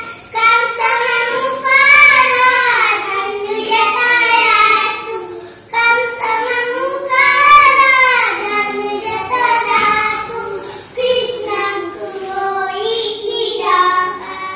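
Two young girls singing an Odia children's action song together, unaccompanied, in sung phrases with short breaks between them.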